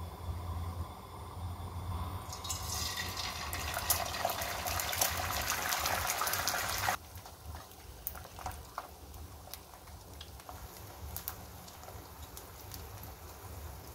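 Eggs frying in hot oil in a nonstick pan. A loud sizzle with fine crackling starts about two and a half seconds in and drops suddenly around seven seconds, leaving a quieter sizzle with scattered pops.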